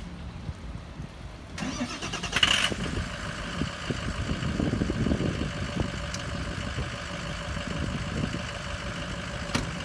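The 2003 Ford F550 bucket truck's engine is started: the starter cranks briefly about a second and a half in, the engine catches, and it settles into a steady idle. A single short knock sounds near the end.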